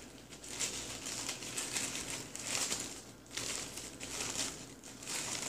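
Printed paper food wrapper crinkling and rustling as it is pulled open by hand, in a run of short, irregular rustles.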